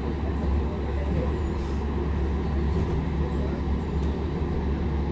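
Metrolink tram running, a steady low rumble heard from inside the passenger car.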